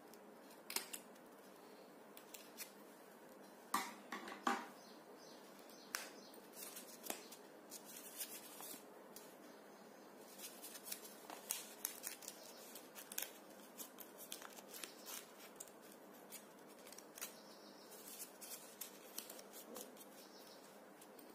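Small scissors snipping through folded origami paper, a few sharp cuts in the first five seconds. After that, light crackling and rustling as the paper is opened out and creased by hand.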